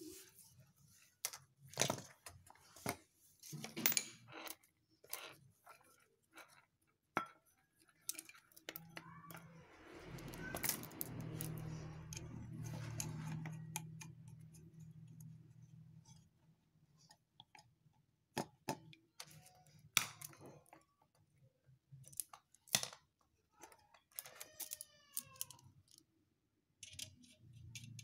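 Light metallic clicks and clinks of tools, brass fittings and gauge hoses being handled at a refrigerator compressor. A low hum swells and fades over several seconds in the middle.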